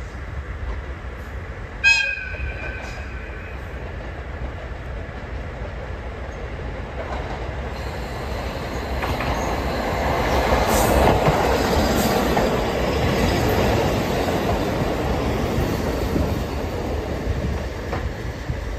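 JR Hokkaido KiHa 40 diesel railcar sounding a short horn blast about two seconds in. Its engine and wheels on the rails then grow steadily louder as it approaches, loudest from about halfway through.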